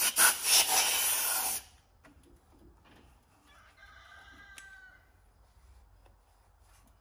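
Compressed-air blow gun blowing out the engine cylinder in one long hiss that cuts off about a second and a half in. A few seconds later a faint drawn-out call of a little over a second sounds in the background.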